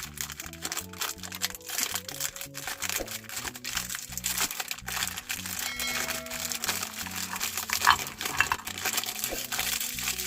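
Meat grinder crushing dry Parle-G biscuits: a dense, irregular crackling and crunching. Background music plays under it.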